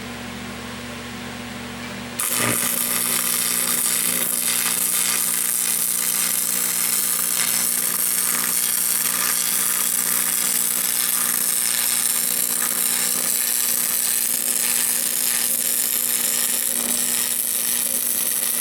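A power tool working on steel channel: after a low steady hum, a loud continuous hissing, crackling noise starts suddenly about two seconds in and keeps on unbroken.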